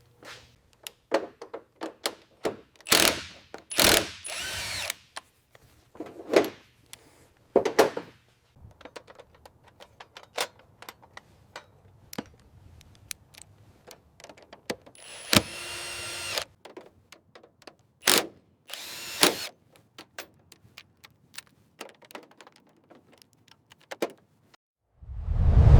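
Hand and power tool work: scattered knocks, clanks and clicks, with a few short bursts of a power drill running. A loud low whoosh swells in near the end.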